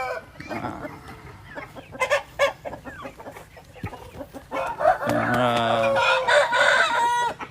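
Gamecock crowing once, a long call of about two and a half seconds that falls in pitch, starting about five seconds in. Before it, short scattered clucks and clicks.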